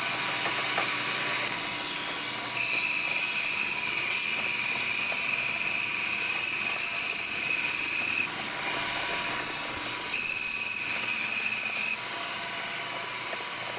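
A 1981 Lantaine LAM-350H metal lathe, set up for milling, running a half-inch two-flute end mill that cuts cast iron. A high steady whine from the cut comes in twice: for about six seconds from about two and a half seconds in, then for about two seconds near the end.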